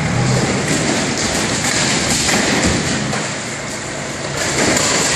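Telehandler's diesel engine running as its grab attachment pulls at a panelled structure being demolished. Crunching, scraping and knocks of the structure give way throughout, over a dense, steady din.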